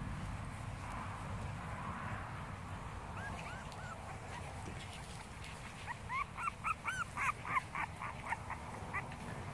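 Boston Terriers yipping while play-wrestling: a few short high yips about three seconds in, then a quick run of yips from about six to nine seconds.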